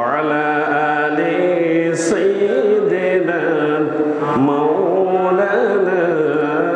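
A man chanting Arabic devotional verse in a slow melody, holding long drawn-out notes, amplified through a microphone.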